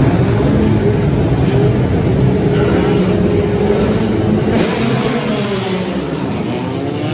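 Several historic single-seater racing car engines running together at high revs, a loud, dense engine din; near the end their notes rise in pitch as the cars accelerate away.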